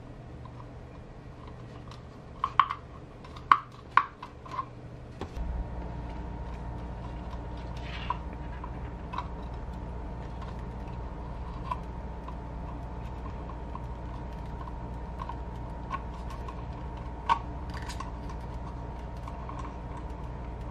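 Small plastic clicks and taps from handling a boat gauge's plastic housing and circuit board as they are fitted back together, with a cluster of sharper clicks a few seconds in and lighter ones after. A steady low hum comes in about five seconds in and carries on.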